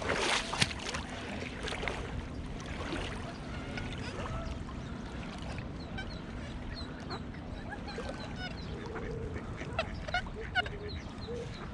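Ducks quacking and calling, more of them near the end, with a short burst of noise at the very start.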